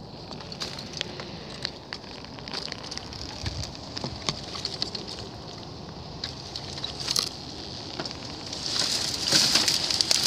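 Dry leaves and twigs crackling and rustling as someone moves through brush: scattered sharp snaps and crunches, growing louder and busier near the end.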